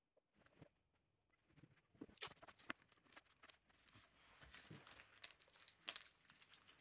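Faint crackling and sharp little clicks of masking tape being pulled off its roll and wrapped around small glued wooden pieces, with the light tapping of the pieces being handled. It starts about two seconds in, with the sharpest clicks then and near the end.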